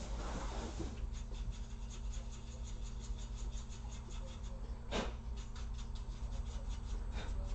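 A laptop cooling fan being cleaned: quick, rhythmic scratching strokes, about five a second, with a sharp click about five seconds in.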